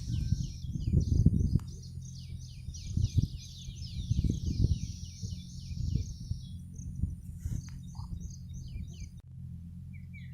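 A small songbird twittering: a fast run of short, high, downward-sliding chirps for about six seconds, then a few scattered chirps that stop around nine seconds in. Low rumbling noise swells under it several times.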